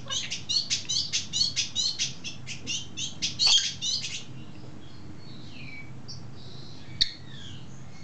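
Budgerigar making kissing sounds: a fast run of short, high, clicky chirps, about five a second, for the first four seconds. A few softer gliding chirps and one sharp click follow about seven seconds in.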